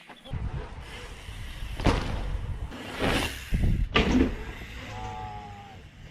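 Mountain bike being ridden: irregular rushes of noise and knocks from the bike and trail, with a short squealing tone about five seconds in.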